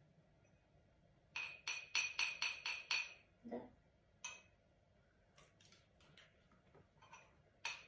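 A metal spoon tapped against a small glass jar: a quick run of about six ringing clinks, then single clinks and a few fainter taps.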